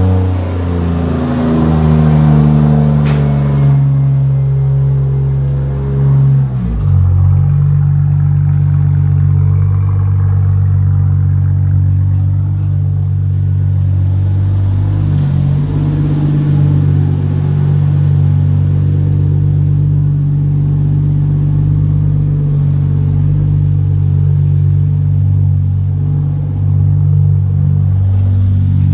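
Turbocharged Toyota 2JZ straight-six in a 1965 Mustang idling, its idle easing down over the first few seconds and changing step about seven seconds in, then running steadily. The wastegate is off, leaving the wastegate port open.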